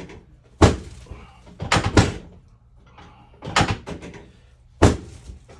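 Sharp, loud knocks from chiropractic adjustment thrusts on a patient lying face down, coming in four bursts a second or so apart, some of them double or triple strikes.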